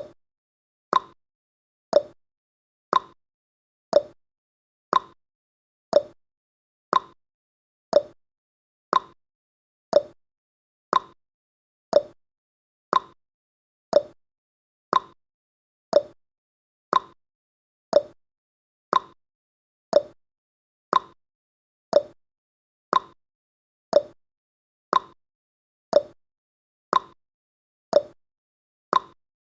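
Countdown timer's clock-tick sound effect: one short tick every second, alternating between a lower and a higher tick in a tick-tock pattern, with silence between ticks.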